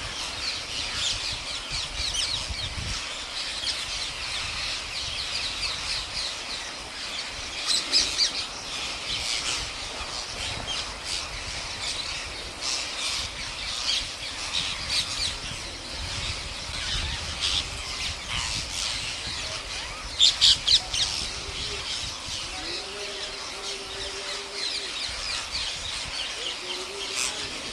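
A large flock of rose-ringed parakeets squawking without pause, many shrill calls overlapping. A few calls stand out louder, about eight seconds in, and there is a quick run of four loud squawks about twenty seconds in.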